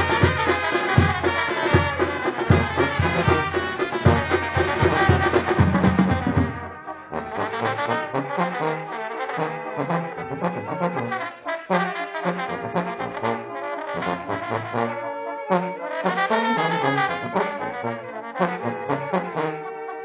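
Mexican brass band music: trumpets and trombones play the melody over a bass line, with loud drum beats for the first six or seven seconds, after which the drums drop back and a lighter brass passage follows.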